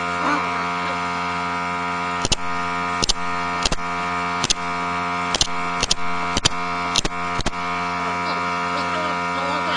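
Pneumatic brad nailer firing nails into a wooden strip: nine sharp shots starting about two seconds in, spaced roughly half a second to a second apart, over a steady loud electric hum.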